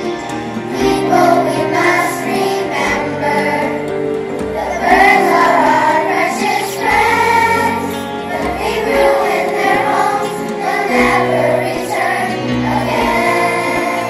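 Children's choir singing a song together over sustained instrumental accompaniment.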